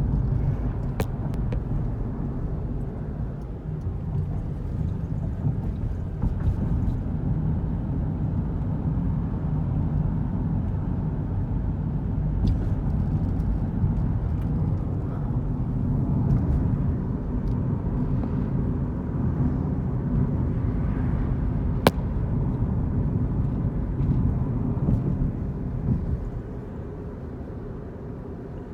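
Car on the road: a steady low rumble of road and engine noise that falls away near the end, with one sharp click a little past the middle.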